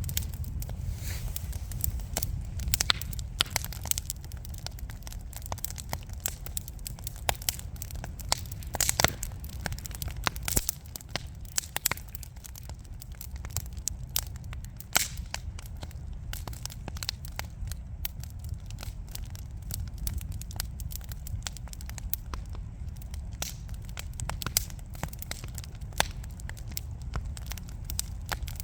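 Wood fire burning in a fireplace: irregular sharp crackles and pops of burning logs, thickest in the first half, over a steady low rumble of the flames.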